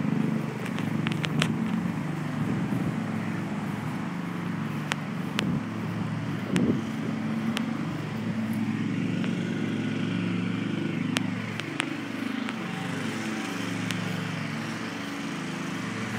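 A motor engine running steadily in the background, its pitch shifting now and then, with a few sharp clicks scattered through.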